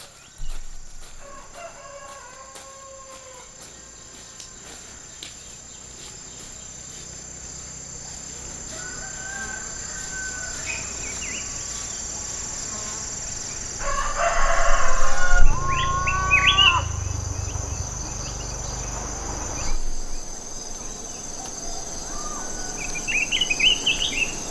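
Rural outdoor ambience: insects keep up a steady high whine while birds call, and a rooster crows about two-thirds of the way through, the loudest sound here, over a low rumble. Quick chirps come near the end.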